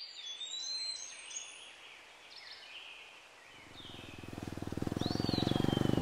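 Birds chirping and whistling, with one clear whistle that rises then falls near the end. From about halfway through, a motorcycle engine fades in underneath and grows steadily louder.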